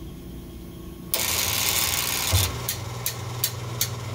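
Tormach slant-bed lathe's belt-driven tool turret indexing in a tool change. Its motor starts suddenly about a second in and runs loudly, spinning the pulley to rotate the turret forward. A low hum joins about halfway through, and several sharp clicks come near the end.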